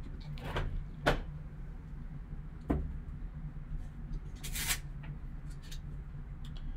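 Gloved hands picking up and handling a shrink-wrapped trading card box: a few sharp taps and knocks as the box is lifted and turned, the loudest about a second in, then a brief swish of handling about four and a half seconds in, over a steady low hum.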